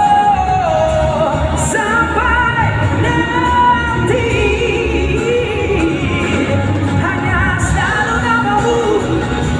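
Live pop band playing, with a male lead singer singing over drums, bass, guitars and keyboards, heard loud from the audience in a large hall. The singer holds long notes.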